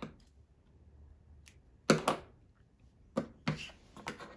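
Noise putty being cut into pieces: several short, sharp clicks, the loudest about two seconds in.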